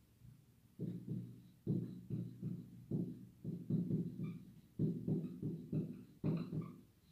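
Marker writing on a whiteboard: a run of short strokes, two or three a second, each with a low buzzing squeak, starting about a second in.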